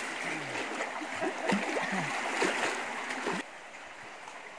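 Water of a small brook running, with scattered splashes. About three and a half seconds in the sound drops suddenly to a quieter, steady rush of water.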